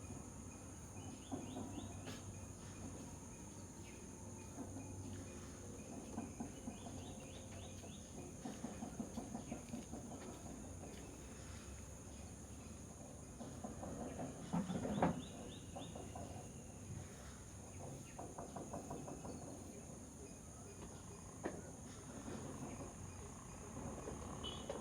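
Outdoor ambience: birds calling in short pulsed series, with a louder call about fifteen seconds in, over a steady high-pitched insect drone.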